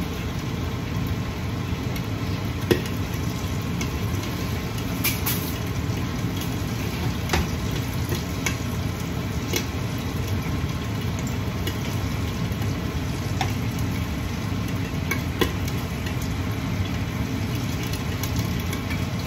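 Steady low whirr of a kitchen range hood fan, with the sizzle of pork frying in its own fat in a covered stainless Saladmaster pan and a handful of sharp pops scattered through.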